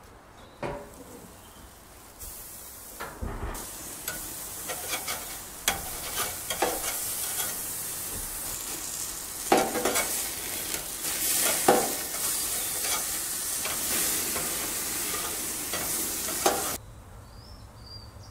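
A steak sizzling on the hot grate of a gas barbecue grill, a dense steady hiss that starts about two seconds in, with a few sharp knocks, and cuts off suddenly near the end.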